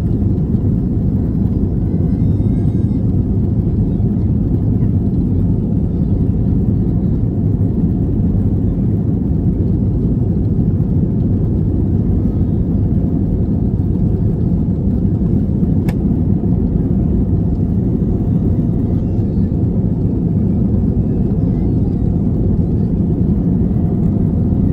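Steady low rumble inside the cabin of an Airbus A321 taxiing: the engines running at low power and the wheels rolling along the taxiway.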